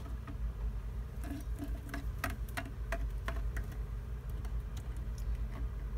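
Small plastic toy figurines being handled and moved on a surface: scattered light clicks and taps at irregular intervals over a steady low hum.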